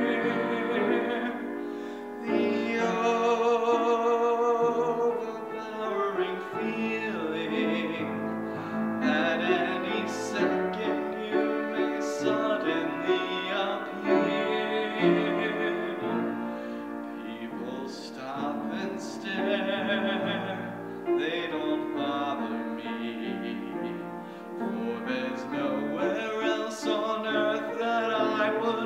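A man singing a solo song with vibrato, accompanied on upright piano.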